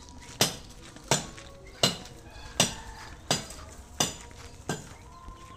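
Footsteps of a man walking in flip-flops: a sharp clack with each step, about one every 0.7 seconds, seven in all.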